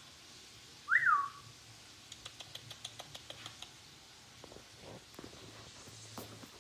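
A person whistles once to call a cat: a short whistle sliding up and back down, about a second in. A quick run of light clicks follows.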